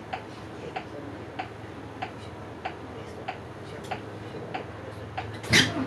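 Bus turn-signal relay ticking steadily, about three clicks a second, over a low engine idle. Near the end a short, loud hiss of air cuts in.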